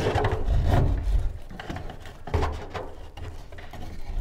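Rope-handling noise on a wooden kayak deck: a varnished deck rope rubbing as it is dragged through a hole drilled in the gunwale and worked with pliers, with one sharp knock of tool or hand on wood about two and a half seconds in.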